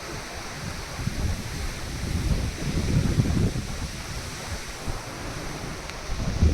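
Wind buffeting the microphone in irregular low gusts over the steady wash of South Pacific Ocean waves.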